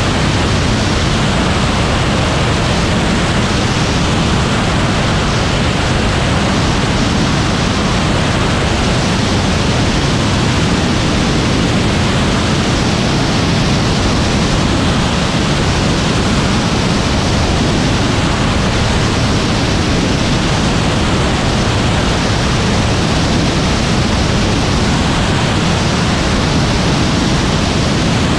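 Steady, loud rush of wind and airflow on a camera mounted under the wing of an Aeroprakt A22 light aircraft in flight, heaviest in the low end, with no distinct engine tone standing out.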